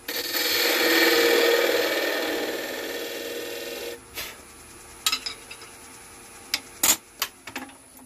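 A turning tool lightly cutting the end of a wooden bottle-stopper blank spinning on a lathe, a rough scraping hiss that stops about four seconds in. A few sharp knocks and clicks follow.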